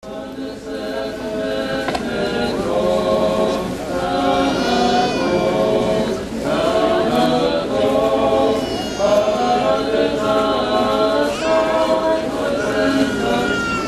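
A large crowd singing a religious hymn together, slow held notes in phrases of about two seconds.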